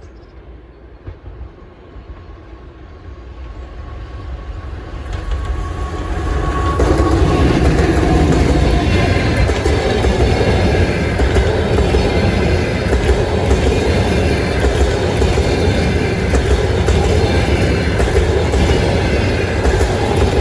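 Long-distance passenger train approaching and growing steadily louder over about seven seconds, then passing close at speed with a steady rumble and wheels clattering over the rails.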